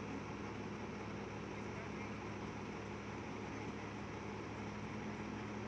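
Heavy diesel engine running steadily, an even low hum that does not change.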